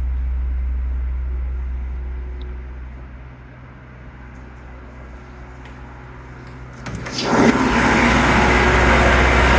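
Standby generator running: a steady low hum, muffled through the walls, that becomes suddenly much louder and fuller about seven seconds in, when the generator is reached in the open.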